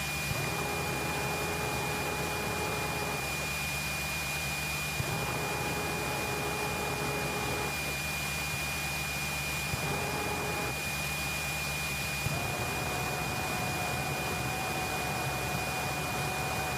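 Cessna 172's piston engine running at low power, heard inside the cockpit as a steady drone with a constant thin high-pitched whine over it. Fainter humming tones come and go a few times.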